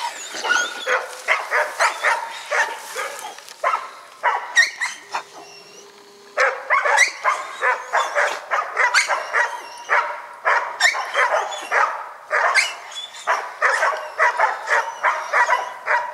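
Hog dog barking at bay on a big boar held in the brush: rapid, repeated barks, about two or three a second, with a brief lull about five seconds in.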